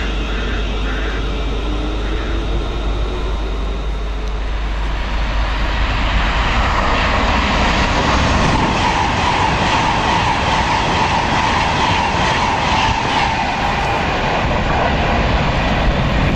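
Virgin Trains Class 390 Pendolino electric train running through the station at speed: a rushing noise that builds from about five seconds in, with a steady tone held for several seconds while it passes.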